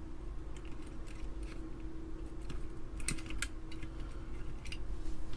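Irregular plastic clicks and taps from an Amiga keyboard being worked apart by hand, keys pressed and keycaps pried at, with a sharper click near the end.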